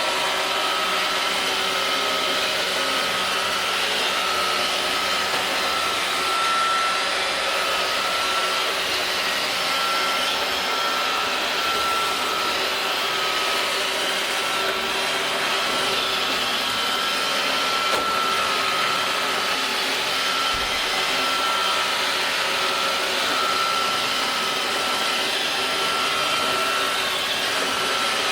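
iRobot Roomba robot vacuum cleaner running steadily as it cleans a door mat, a constant motor whine over the brush and suction noise.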